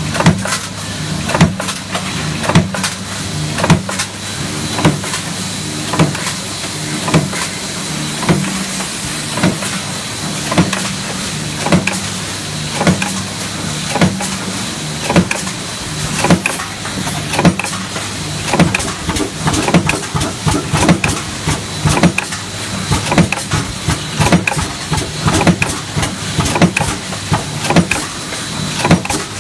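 Mechanical power press stamping sheet-metal strip in a progressive die: a sharp punching stroke about once a second, over the steady hum of the press's motor and flywheel.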